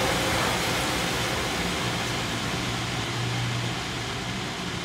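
Fish-pond paddlewheel aerator running: a steady churning splash of water with a low motor hum, slowly getting quieter.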